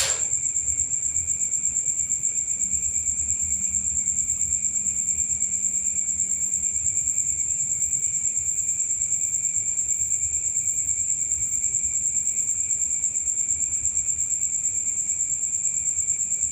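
Cricket chirring: one steady, high-pitched trill that pulses rapidly and evenly without a break.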